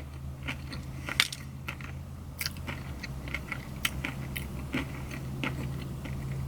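Close-miked biting and chewing of a cream-filled, iced donut: soft, irregular mouth clicks, a sharper one about a second in, over a steady low hum.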